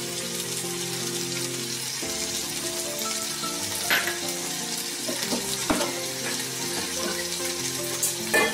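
Tomatoes frying in oil in a pan, a steady sizzle, with soft background music of held notes underneath. There are two small clinks, about four and six seconds in.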